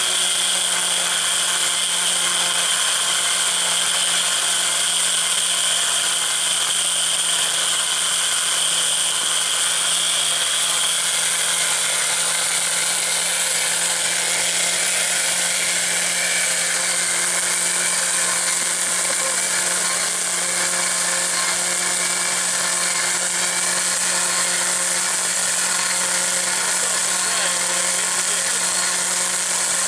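Electric winch on an off-road vehicle running steadily under power, winding in its cable, with a constant motor whine.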